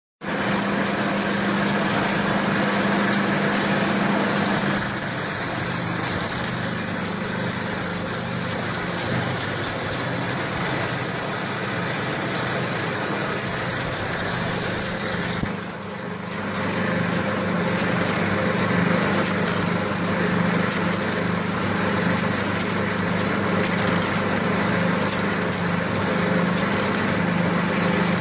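Automatic alcohol prep pad packaging machine running: a steady mechanical hum with regular light ticking from its moving parts.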